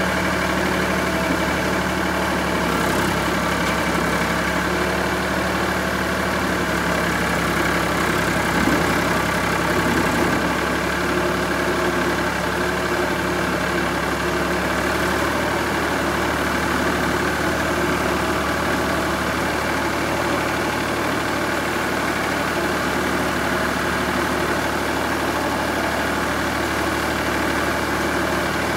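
Ford 4600 tractor's three-cylinder engine running steadily while the front loader's hydraulic valve levers are worked to raise the arm and clam bucket, with a small rise in level about eight seconds in.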